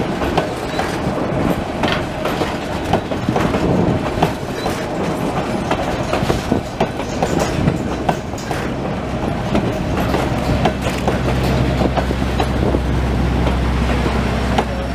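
Narrow-gauge passenger coaches rolling past, their wheels clacking and knocking over the rail joints over a continuous rumble. A low steady drone builds over the last few seconds.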